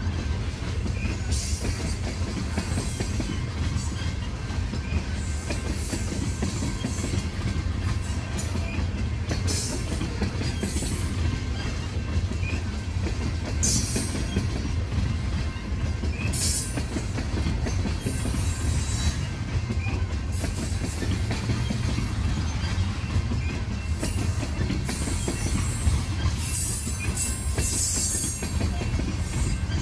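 Loaded coal hopper cars of a freight train rolling past, a steady low rumble of wheels on rail, with brief high-pitched wheel squeals every few seconds.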